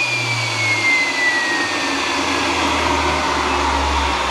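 TS-20B aircraft turbostarter spun by its electric starter on a dry test spin, with no fuel or ignition: a high whine falls slowly in pitch and fades out about two and a half seconds in as the rotor winds down, over a steady rush of air.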